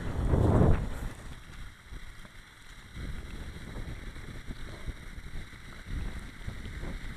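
Wind buffeting the microphone, a low rumble that is loudest in the first second and then drops to a quieter, uneven rumble with faint scattered ticks.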